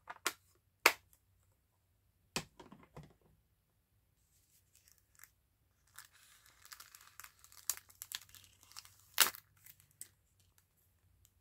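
An ink pad tapped and pressed onto paper CD sleeves a few times, with the paper rustling and crinkling as it is handled between the taps. The loudest tap comes near the end.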